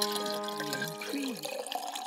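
The last held notes of a short intro jingle ringing out and fading. Near the end comes a liquid-pouring sound that rises in pitch, as a glass fills.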